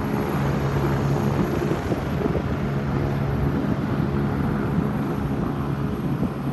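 Light single-engine propeller plane's piston engine running at low power as the plane lands and rolls out, a steady drone.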